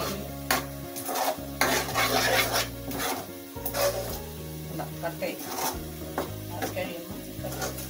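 Sticky jaggery-and-grated-coconut filling being stirred and scraped around a non-stick pan as it cooks down toward a dry filling. The scraping comes in repeated, uneven strokes over a low sizzle.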